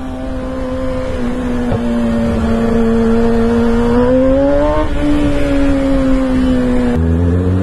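Kawasaki ZX-6R inline-four motorcycle engine running at steady revs under way, its note rising a little about four to five seconds in and easing back. A deeper engine note joins near the end.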